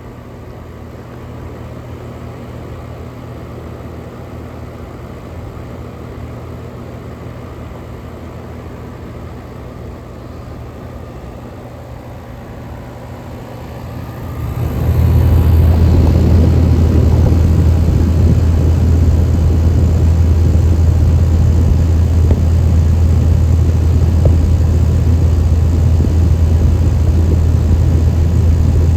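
Outdoor central air conditioner condensing unit running: a steady low hum of compressor and fan with a rushing of air, which becomes much louder about halfway through and stays loud.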